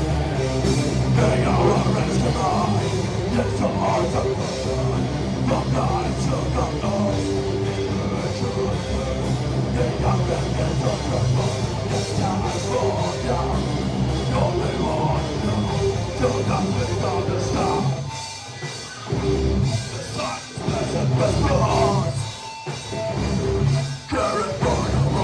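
Live heavy metal band playing an instrumental passage: distorted electric guitars, bass and a drum kit. In the last few seconds the band plays stop-start hits with brief gaps between them.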